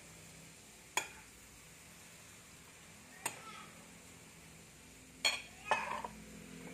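A spoon clinking against a plate of rice: four sharp clinks, the last two close together near the end, over a faint steady hum.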